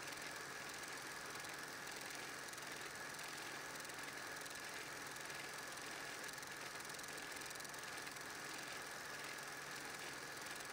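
Steady hiss with a thin constant tone and a low hum, unchanging, with no distinct events: the background noise of a transfer of silent 8mm home-movie film.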